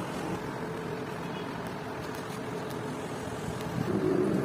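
Metal lathe running, a steady mechanical hum from the motor and drive, growing louder near the end as the workpiece is fed up to a threading die.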